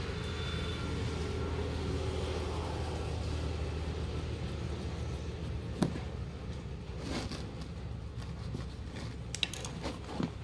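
A knife scraping the rubber around the valve base of an inner tube, a faint scratchy hiss, over a steady low background rumble. A few short sharp clicks come in the second half.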